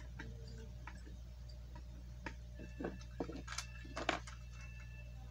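Lego plastic bricks and pieces being handled: light clicks and taps, scattered at first, then a short cluster about halfway through, over a steady low hum.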